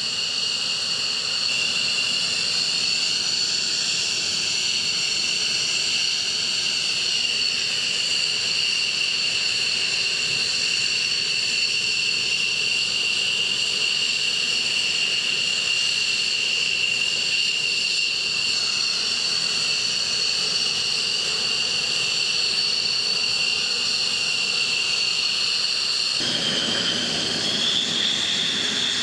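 An F-15E Strike Eagle's twin turbofan engines running on the ground: a steady, high-pitched jet whine of several shrill tones over a rushing hiss. Near the end the whine rises a little in pitch and the rushing sound grows fuller.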